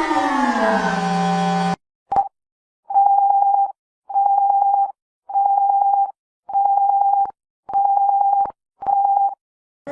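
Emergency alarm siren winding down in pitch and cutting off under two seconds in. Then a short blip and six beeps of one steady tone, each under a second long and a little over one a second apart. A siren begins winding up again just at the end.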